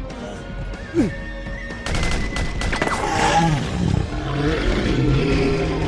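Background music, with a quick falling-pitch sound effect about a second in.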